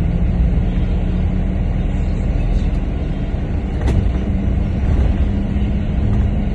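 Double-decker bus running along the road, heard from inside: a steady low engine and road rumble with a constant hum, and a single sharp click or rattle about four seconds in.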